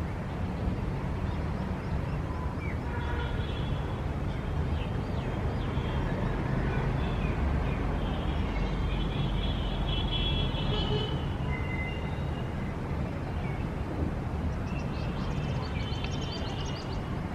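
City street ambience: a steady low rumble of traffic with small birds chirping over it in short bursts, at the start, in the middle and near the end.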